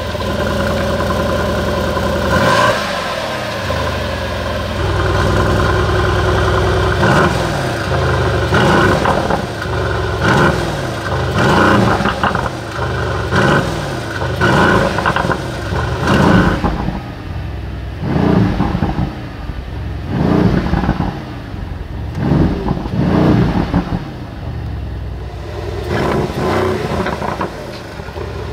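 Mercedes-AMG GLC63 S Coupe's 4.0-litre twin-turbo V8 revved while standing, heard at the quad exhaust. One held rev of a few seconds, then a long string of short rev blips about one a second, each rising and dropping back.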